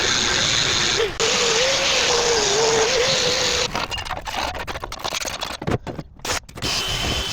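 Angle grinder grinding rust off the steel griddle top, its motor whine wavering in pitch under load over a steady grinding hiss. It stops briefly about a second in. After three or four seconds the grinding turns choppy and broken.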